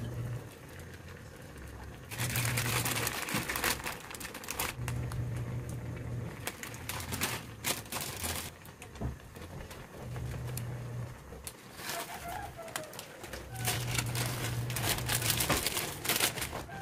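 Shrimp in sauce bubbling at a boil in a wok, with stretches of louder hiss. Low cooing repeats every few seconds in the background, and a noodle packet rustles near the end.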